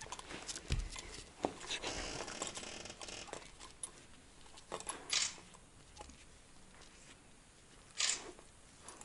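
Siberian husky nosing and licking young kittens on a wooden floor: fur rustling and small handling noises, a dull thump under a second in, and two short hissy bursts about five seconds in and near the end.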